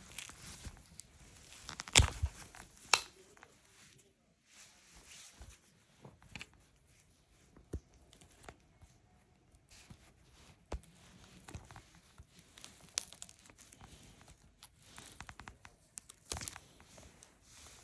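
Handling noise as the top piece of an old protective case is peeled and pried off an AirPods Pro charging case: scattered clicks, scrapes and rustles, with two sharp knocks about two and three seconds in.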